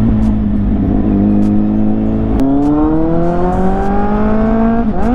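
Kawasaki inline-four superbike engine heard from the rider's seat. It holds a steady note, then after a sharp click about two and a half seconds in its pitch climbs steadily as the bike accelerates. Near the end the revs dip and jump back up.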